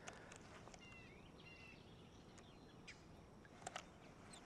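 Near silence with faint bird chirps about a second in, and two short clicks close together near the end.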